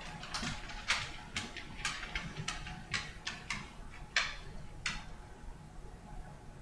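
Computer mouse clicking and scraping in short, irregular bursts, roughly two a second, as text is drawn on screen; the clicks stop about five seconds in.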